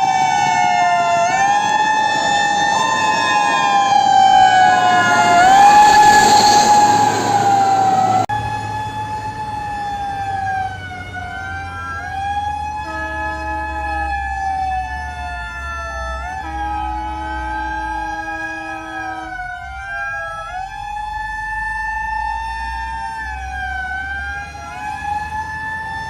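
Emergency vehicle siren wailing, its pitch sweeping up and down about every two seconds over vehicle and road noise, which is heavier for the first eight seconds or so. Twice around the middle, a steady horn tone is held for a second or more.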